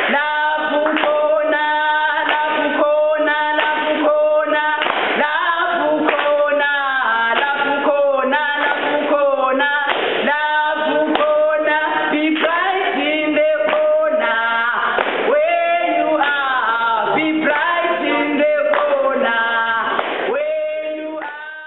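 Two women singing a song together, with long held notes; the song fades out at the end.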